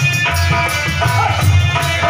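Live folk devotional music: hand drums beating a steady rhythm under sustained instrument tones, with jingling, rattling percussion.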